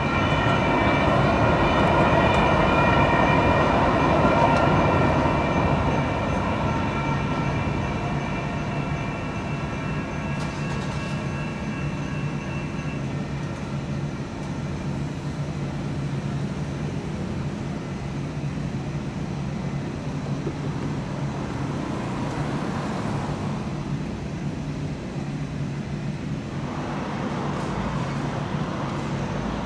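Light-rail train passing through a grade crossing while the crossing bell rings, loudest in the first few seconds as the train goes by. The ringing stops about thirteen seconds in as the gates begin to rise, leaving a steady hum of street traffic.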